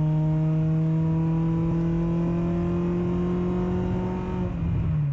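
Honda Prelude's exhaust droning loudly as the engine holds a steady raised rpm, one even pitch, falling away near the end as the revs drop. The owner calls the exhaust terrible and loud, with a drone that a new muffler is meant to cure.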